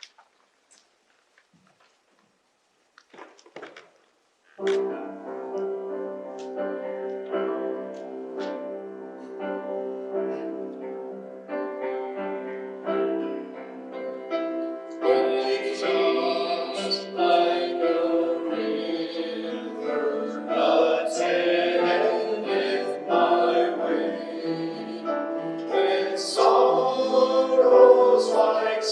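Near silence for about four seconds, then a keyboard starts playing sustained chords of a worship song. About fifteen seconds in, voices join in singing.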